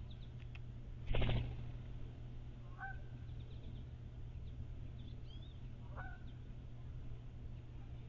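A loud, harsh burst lasting under half a second, about a second in, as a blue jay leaves the swinging platform feeder. Two short two-part bird calls follow, about three seconds apart, with a few faint high chirps over a steady low hum.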